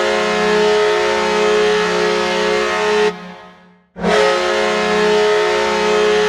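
Ice hockey arena goal horn sounding two long blasts of a steady chord with a strong low note, heard dry without arena reverb. The first blast stops about three seconds in and the second begins about a second later.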